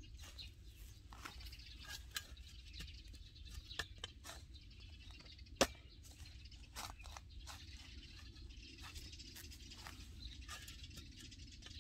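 A steel spade digging into dry, grassy soil: irregular scrapes and sharp knocks as the blade strikes and turns the earth, the loudest knock about halfway through.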